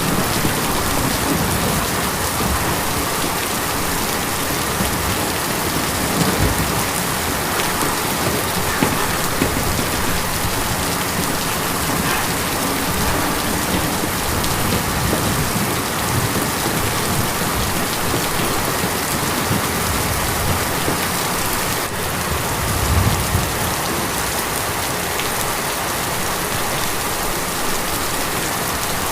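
Steady rain drumming on a tin roof, a dense even patter, with a few low rumbles underneath.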